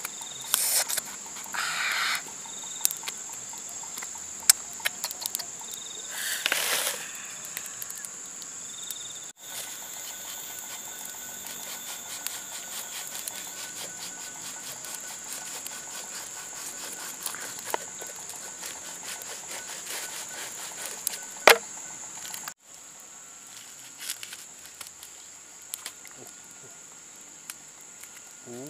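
Steady high-pitched insect drone, with scratchy strokes and small clicks from a bamboo blade scraping the rind off a green fruit. The louder scraping strokes fall in the first few seconds, and one sharp click comes later.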